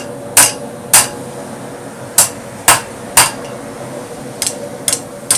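A 2.5 pound rounding hammer striking 1/2 inch steel round bar to flatten it: two ringing blows, a pause, three more about half a second apart, then three lighter taps near the end. A steady hum runs underneath.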